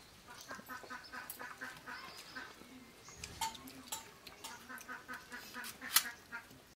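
Birds, likely village fowl, calling in quick runs of short repeated calls, several a second, broken by scattered sharp clicks, the loudest about six seconds in.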